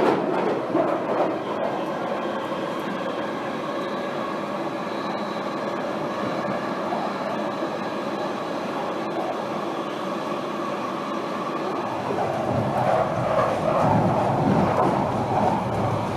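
London Underground train running, with a steady noise of the moving carriage that grows louder and deeper about twelve seconds in.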